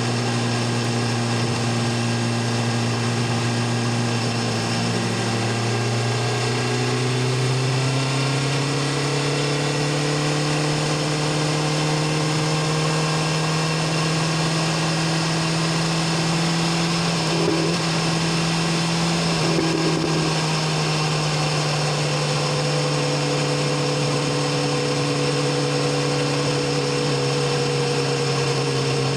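BMW S1000RR inline-four engine and exhaust running steadily while the motorcycle cruises, with wind and road rush. The engine note rises gently a few seconds in, then holds.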